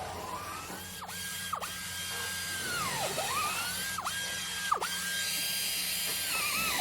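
Electric drill motor whining at a steady high pitch, the whine dipping sharply and climbing back up about five times as the speed drops and recovers.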